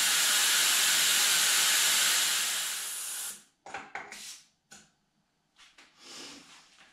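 Air hissing steadily out of a Tesla Model Y tyre's valve as it is deflated from about 3 bar toward half a bar. The hiss fades and cuts off about three seconds in, followed by a few short, quiet clicks.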